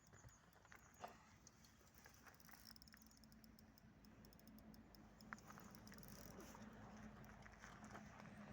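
Near silence: a faint outdoor background with scattered light ticks, and a faint steady low hum that sets in about two and a half seconds in.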